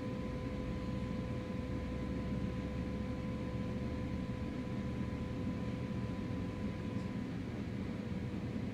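Steady low mechanical hum with a constant whine over it and no crackling.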